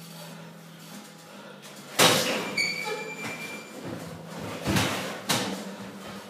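Thuds and scuffs of two boxers sparring in a ring, gloves and bodies colliding. A sharp, loud impact about two seconds in, then a few more thuds near the end as they clinch against the ropes.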